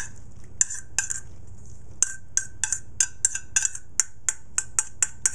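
A metal spoon scraping corn kernels out of a metal colander, clinking against it in a quickening run of sharp, ringing knocks, about three to four a second by the end.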